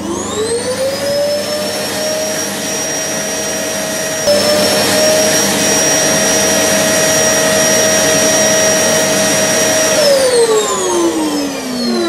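Vacuum cleaner motor running with a steady high whine over rushing air. It finishes spooling up in the first second, gets a little louder about four seconds in, and winds down with a falling whine over the last two seconds.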